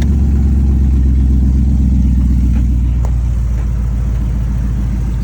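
1979 Chevrolet C10 pickup engine idling steadily.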